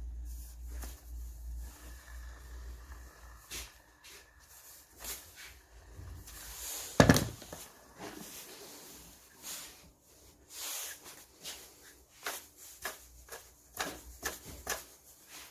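Irregular clicks and knocks of things being handled, with a low rumble for the first couple of seconds and one loud knock about seven seconds in.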